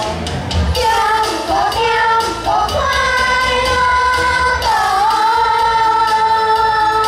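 A group of young children singing a Hakka nursery rhyme in unison over backing music with a beat, the melody moving in the first half and then settling into one long held note.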